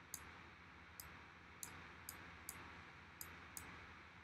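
Faint, sharp computer mouse clicks, about seven of them at irregular intervals, over a low background hiss.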